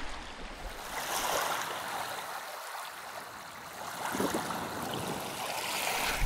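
Small wind-driven waves lapping at a lakeshore: a steady, even hiss.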